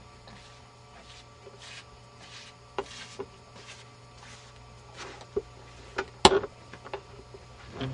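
Soft shuffling footsteps on a concrete floor, about one every two-thirds of a second, over a steady low electrical hum, with a few sharp knocks, the loudest a little over six seconds in.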